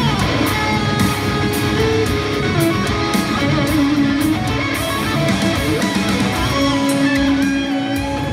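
Electric guitar, an Acacia Romulus played through a Line 6 Helix modeller, playing a distorted heavy-metal lead over a band backing track. It opens with a note sliding down in pitch and ends on a long held note.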